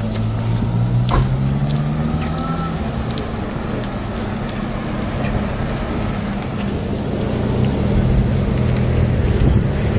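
A car or motorcycle engine idling steadily with a low hum, with a few light clicks.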